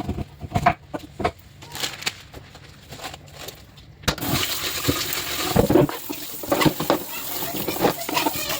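A few light knocks and clatters, then about four seconds in water starts running in a steady hiss, with more knocks and clatters over it.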